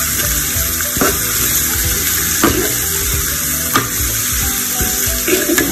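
Sliced shallots and garlic sizzling steadily as they fry in hot oil until crisp, with a few light knocks.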